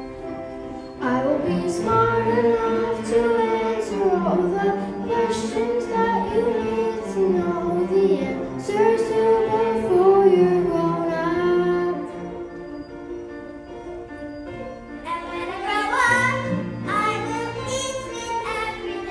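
Music: a high voice singing a melody over instrumental accompaniment. It eases off for a few seconds past the middle and then swells again.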